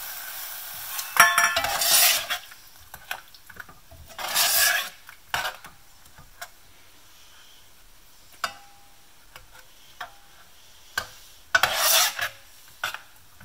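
Steel spoon stirring a liquid mixture in a stainless-steel saucepan. There are several short scraping strokes against the pot and sharp clicks of the spoon on the metal, after a steady sizzling hiss in the first second.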